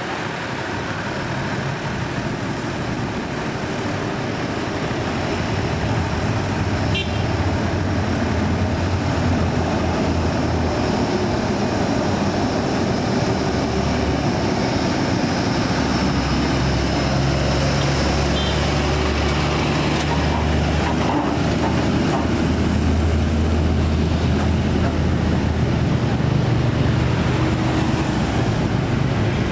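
Heavy Scania truck's diesel engine pulling a lowboy trailer loaded with a crawler crane, a low drone that grows louder as it approaches, mixed with passing motorbike and car traffic. Two short high beeps about 7 and 18 seconds in.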